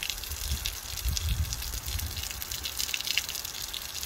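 Water gushing and dripping, with many small crackling drips and an irregular low rumble underneath.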